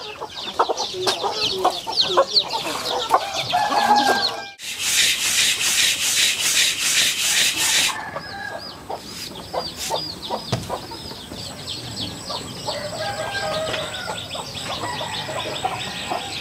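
Chickens clucking with chicks peeping in short, high, repeated cheeps. For about three seconds in the middle, a loud rasping rub of repeated hand strokes takes over, as hands work something against a round dish.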